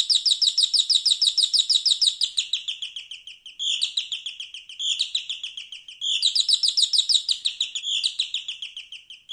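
Canary singing: long, fast trills of rapidly repeated high notes. Partway through, the song breaks into shorter phrases, each starting with a quick downward sweep.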